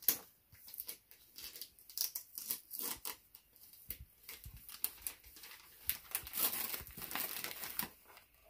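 Gift wrapping paper being torn and crinkled by hand as a box is unwrapped, in short, irregular rips and rustles.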